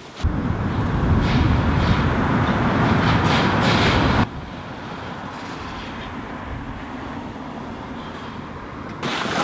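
Street traffic ambience with a heavy low rumble of passing vehicles. About four seconds in it cuts off abruptly to a much quieter, steady indoor room tone.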